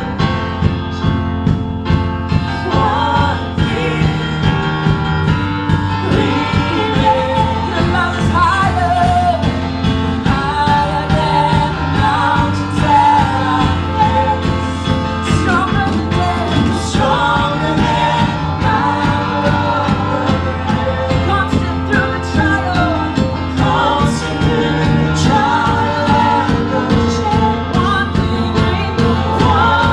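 Worship band music with singing: sung voices over a steady bass line and a regular drum beat.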